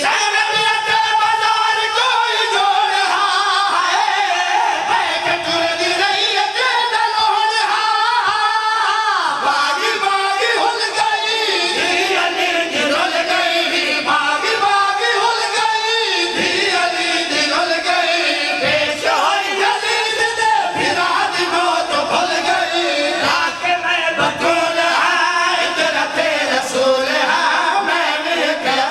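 Several men singing a Shia mourning lament (nauha) together into microphones, with no instruments.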